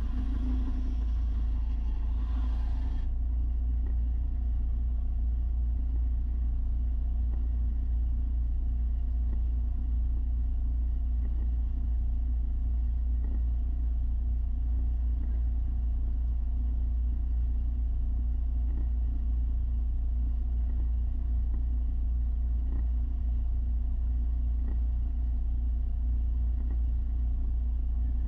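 Steady low mechanical hum and rumble, with a brighter hiss over it that stops about three seconds in.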